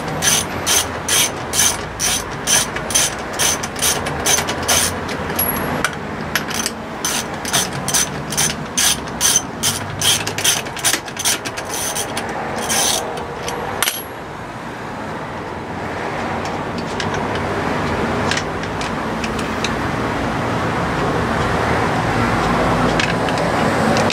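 A socket ratchet wrench clicking in a steady rhythm, about two clicks a second, as the car's wheel nuts are worked loose. The clicking stops about halfway through. After that an even rushing noise slowly grows louder.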